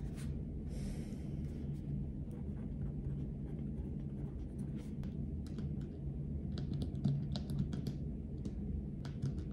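Pen writing on paper, with a soft scratching stroke about a second in and scattered light clicks and taps that come more often in the second half.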